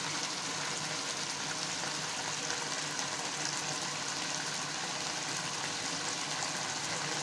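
Fish curry with potatoes sizzling and bubbling steadily in a wide pan on the stove as its thin gravy cooks down.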